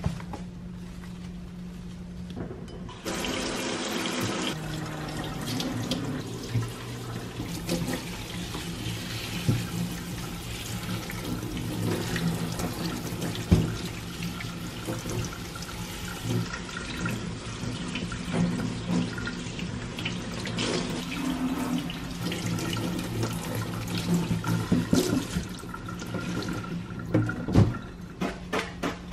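Tap water running into a stainless steel sink as celery stalks are rinsed under it, starting about three seconds in, with a few knocks.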